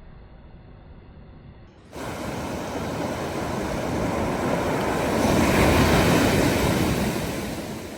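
Sea surf: a wave rushing in as a loud, even wash that swells for a few seconds and then fades. Before it, a quieter low rumble that cuts off abruptly about two seconds in.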